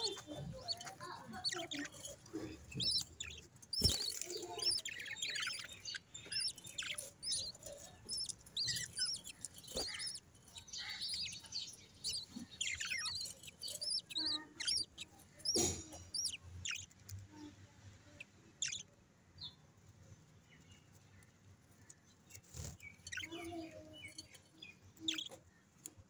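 Budgerigars chirping in many quick, high, short calls, busiest in the first half and thinning out later, with a few sharp knocks among them.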